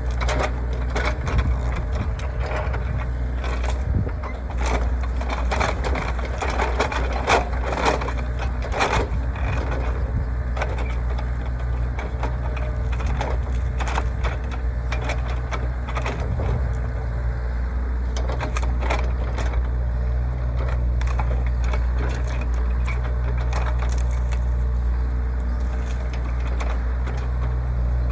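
Hyundai HY60 excavator's diesel engine running steadily while brush and roots are crushed and broken, with many sharp cracks of splintering wood, thickest in the first ten seconds and scattered after.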